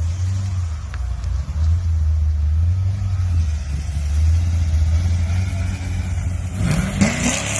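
Car engine idling with a steady low rumble, revving briefly near the end.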